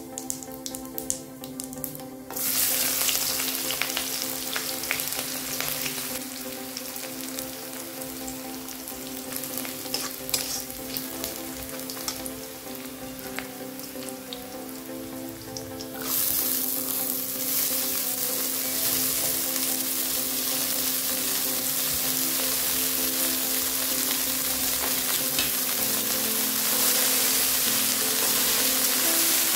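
Cumin and mustard seeds crackling in hot oil, then a sudden loud sizzle about two seconds in as sliced onions fry and are stirred with a metal spatula. Past the middle the sizzle steps up louder and steadier as chopped radish greens fry and are stirred in the pan.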